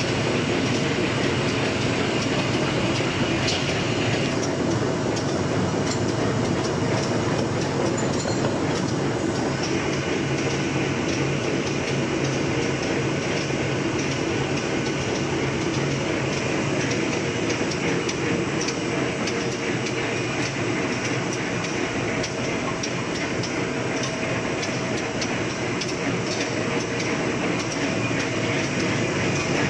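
Napkin paper two-colour printing and folding machine running at speed: a steady, dense mechanical clatter of rollers and folding gear with rapid ticking throughout. A higher hiss joins from about four seconds in to about nine seconds.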